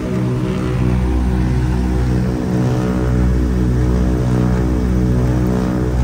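Ford Tri-Motor's three radial engines and propellers running steadily in cruise flight, heard from inside the cabin. The drone has a rhythmic throb, as the engines beat slightly against each other.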